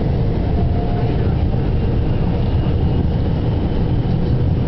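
Steady low rumble of city street traffic, with a few faint steady tones running through it.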